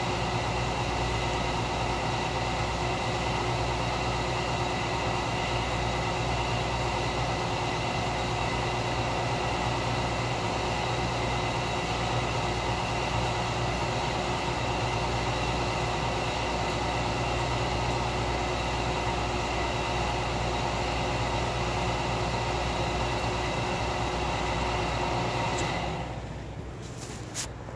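A steady mechanical drone with several constant tones, which cuts out about 26 seconds in, followed by one short click near the end.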